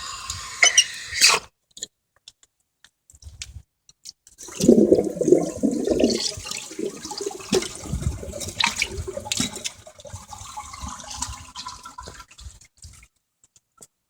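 Orion toilet flushing: after a short lull, a loud rush of water into the bowl starts about four seconds in, swirls and gurgles, then tapers off and stops near the end. The water sound is a little distorted.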